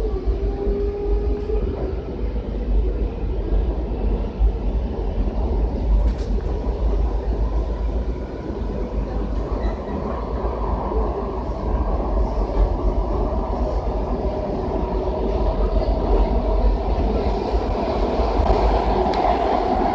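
Kawasaki 7000-series Washington Metro railcar heard from inside while under way: steady rumble of wheels on rail with clickety-clack. Over the last several seconds a whine rises in pitch and the running gets louder.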